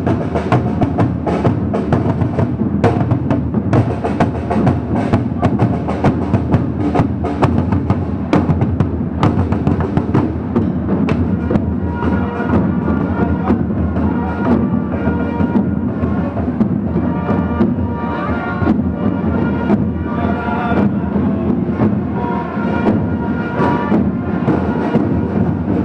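Parade drums beating a steady marching rhythm. From about halfway, higher pitched notes play a line over the drumming.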